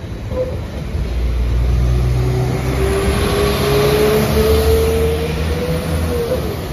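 Northern Class 195 diesel multiple unit passing close by under power as it pulls away, with a low rumble and an engine whine that rises slowly in pitch as it accelerates.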